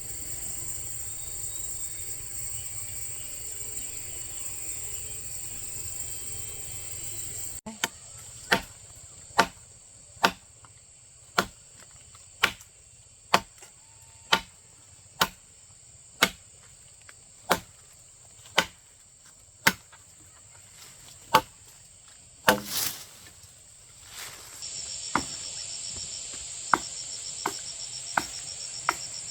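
Steady high chirring of crickets, broken off suddenly about a third of the way in. Sharp knocks then follow at a steady pace of about one a second, one heavier near the end, before the insect chirring returns alongside quicker, lighter knocks.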